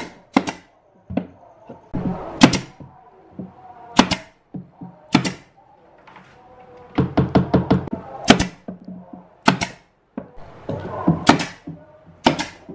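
Pneumatic nail gun firing nails into plywood: sharp single shots a second or two apart, with a quick run of several shots about seven seconds in.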